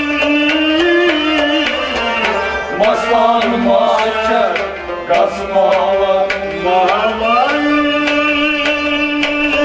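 Instrumental interlude of a Kashmiri folk ensemble: harmonium, rabab and sarangi play the melody over a steady beat struck on a clay-pot nout. The melody moves through a run from about a third of the way in, then settles back onto a held note near the end.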